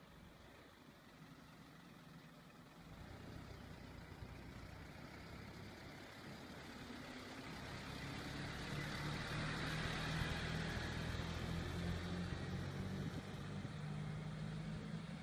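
Isuzu light truck's diesel engine running as the crane truck drives up and passes close by, its engine and tyre noise growing steadily louder to a peak about ten seconds in, then holding as it pulls away.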